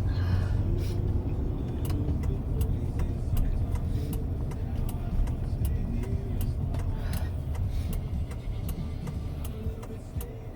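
Car cabin noise while driving: a steady low road-and-engine rumble, with faint light ticks scattered through it.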